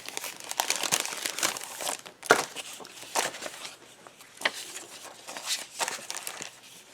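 Thin paper ephemera sheets being handled and leafed through, rustling and crinkling in irregular bursts, busier in the first two seconds, then a few sharper crackles.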